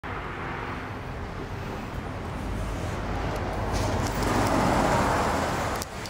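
Road traffic noise, with one vehicle passing that swells and fades about four to five seconds in; the sound cuts off suddenly just before the end.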